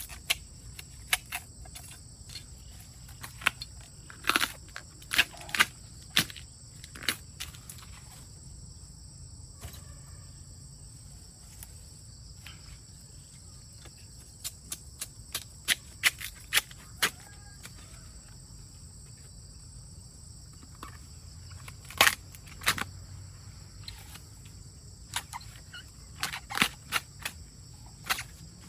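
Insects, crickets or cicadas, keep up a steady high-pitched drone, while irregular sharp snaps and clicks come in clusters, the loudest about four, six and twenty-two seconds in.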